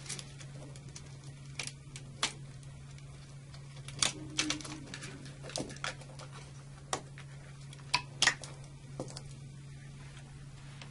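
Irregular sharp plastic clicks and snaps as overcurrent trip switches are unlatched and lifted out of a molded plastic breaker accessory tray, the loudest about four and eight seconds in, over a steady low hum.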